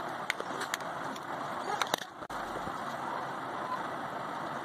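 Steady background noise with several light clicks and taps in the first half, as plastic bottle caps are handled.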